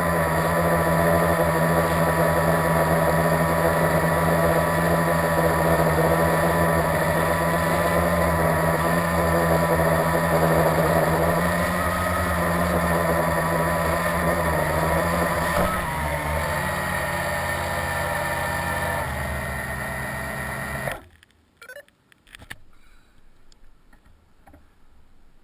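Blade 350QX quadcopter's electric motors and propellers whining steadily, heard close from its onboard camera, with small shifts in pitch as it manoeuvres. About 21 seconds in the motors cut off suddenly, followed by a few faint knocks.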